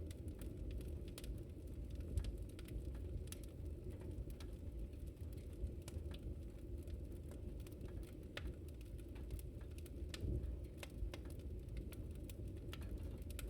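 Wood fire crackling: irregular sharp pops and snaps over a steady low rumble of the burning fire.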